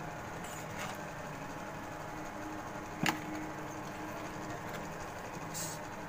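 Quiet room tone with a steady background hiss, a faint steady hum through the middle, and one sharp click about three seconds in.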